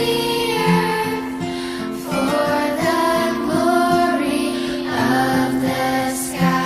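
Background song: a female voice singing over gentle guitar accompaniment.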